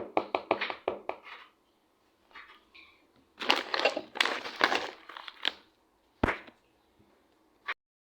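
Kitchen handling noises while a salad is put together: a quick run of clicks and taps, then a couple of seconds of rustling and scraping, and a single thump near the end.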